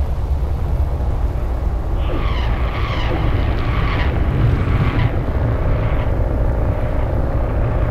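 Wind buffeting a camera's built-in microphone outdoors: a loud, steady, irregular low rumble. Fainter higher-pitched sounds come and go about two to five seconds in, and a faint steady hum joins near the end.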